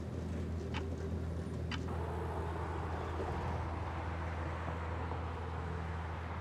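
Wall clock ticking about once a second, twice, over a steady low hum. After about two seconds the ticks stop and a steady wash of distant street traffic joins the hum.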